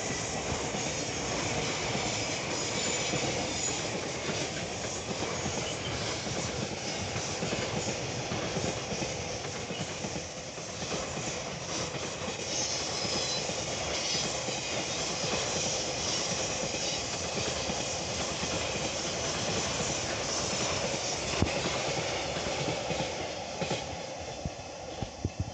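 A JR Freight container train's wagons rolling past on the rails: a steady, continuous rumble of wheels on track. It fades near the end as the last wagons go by.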